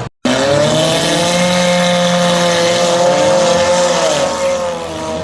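Demolition derby car engines running hard at high revs: a loud, steady engine note that rises and falls slightly. The sound cuts out completely for a moment just after the start.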